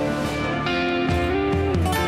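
Background music led by guitar, with a note sliding down in pitch about a second and a half in.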